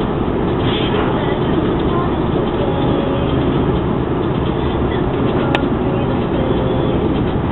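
Steady in-cabin driving noise of a Jaguar X-Type on the move, mostly engine and tyre rumble. A single short click comes about two thirds of the way through.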